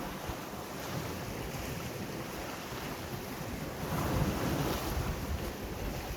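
Sea waves washing in, with wind buffeting the microphone; a wave surges louder about four seconds in.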